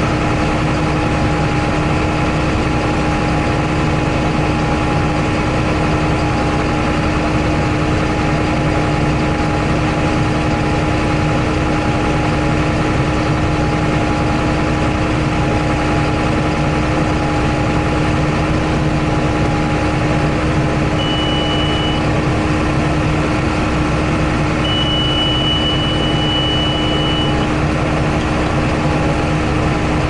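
John Deere 8100 tractor's six-cylinder diesel running steadily, heard from inside the cab, a constant drone with a steady hum. A short high tone sounds twice in the latter half.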